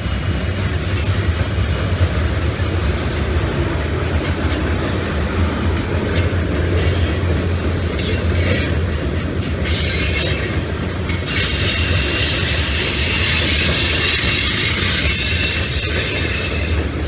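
Freight train of covered hoppers and tank cars rolling past, a steady rumble of steel wheels on rail with clicks over the rail joints. Wheel flanges squeal on and off from about eight seconds in, loudest for a few seconds near the end.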